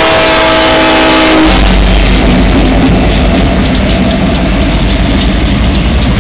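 Freight train's diesel locomotives passing close by, their multi-tone air horn chord sounding and cutting off about a second and a half in, then the heavy rumble of the locomotive engines and wheels going by.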